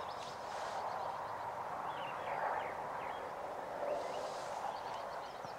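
Small birds chirping and singing in many short, scattered calls over a steady background hiss of open countryside.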